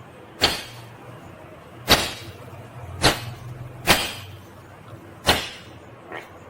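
Green ringneck parakeet giving five sharp, loud screeches, one every second or so, followed near the end by softer, quicker chattering calls.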